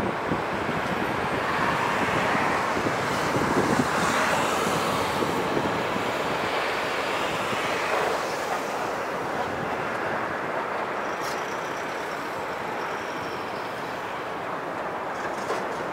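Electric train running through the station: a steady rumble of wheels on rail that swells a couple of seconds in and then slowly eases off.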